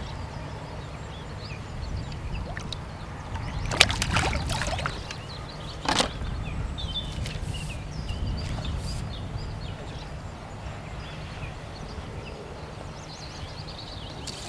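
A hooked golden tench splashing at the surface close in, a burst of splashing about four seconds in and a sharper splash about two seconds later. Birds chirp throughout over a steady low rumble.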